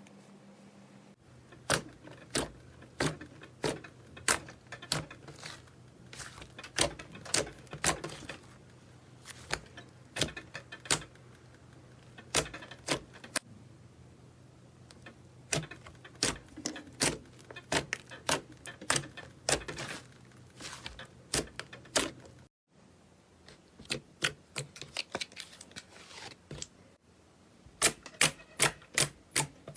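Hand-played slime giving sharp, irregular clicks and pops as air pockets burst, with a quick run of clicks near the end. A faint low hum sits underneath until it cuts off about 22 seconds in.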